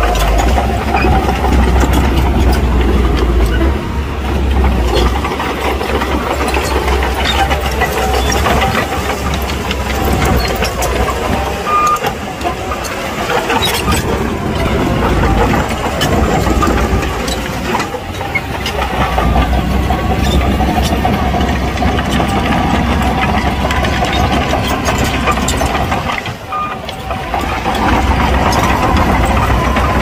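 Diesel engines of heavy earthmoving machinery running, their rumble rising and falling, with scattered clanks.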